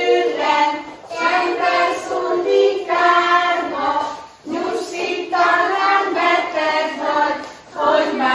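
A group of young children singing a song together, in sung phrases of about three seconds with short breaks between them.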